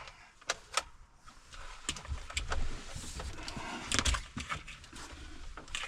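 Handling noise inside a truck cab: several sharp clicks and taps over rustling and scraping as wiring is worked through the plastic interior trim.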